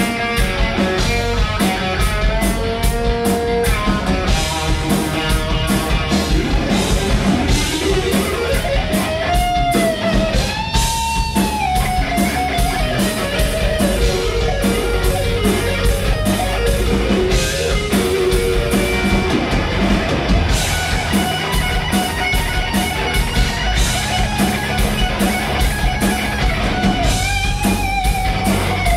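Rock band playing live and loud: electric guitar, some of its notes bending in pitch, over bass guitar and a drum kit.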